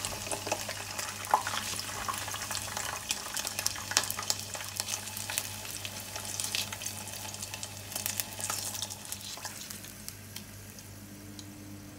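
Chicken karaage deep-frying in hot oil: steady sizzling with many sharp crackles and pops that thin out toward the end, over a steady low hum. A few louder clicks come through, about a second in and again around four seconds.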